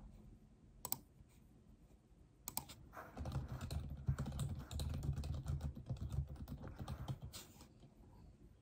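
Typing on a computer keyboard: a fast run of key clicks from about two and a half seconds in until near the end, after a single click about a second in.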